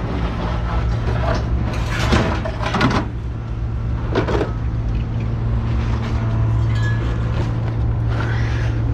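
An engine running steadily with a low hum, with a few short bursts of clatter about two, three and four seconds in.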